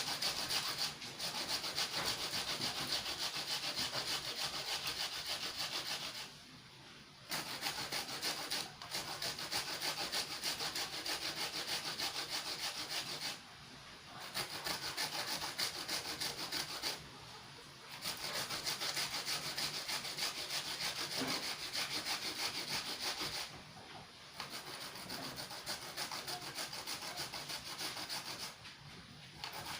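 Sweet potato being grated by hand: rapid, continuous scraping strokes in stretches of several seconds, broken by about five short pauses.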